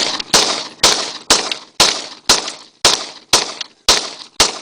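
Two 9mm pistols, a Glock 17 and a Beretta 92FS, fired in quick succession, about two shots a second with some shots coming in close pairs. Each shot has a trailing echo.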